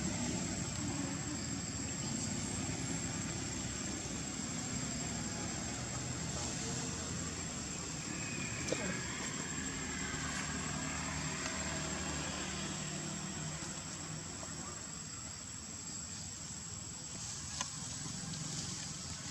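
Outdoor background of a vehicle engine running, with a thin, steady high insect whine above it. A faint gliding call comes about halfway through, and a single sharp click about nine seconds in.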